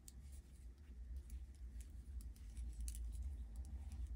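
Metal circular knitting needles clicking lightly and irregularly as stitches are knit, over a steady low hum.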